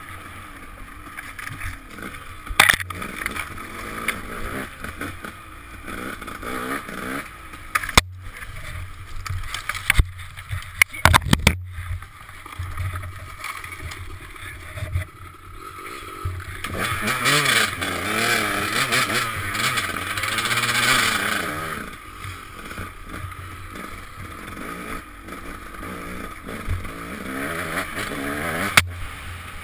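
Dirt bike engine under constant throttle changes, its revs rising and falling, held higher and louder for a few seconds past the middle, heard through a helmet-mounted camera with wind noise. Several sharp knocks are mixed in.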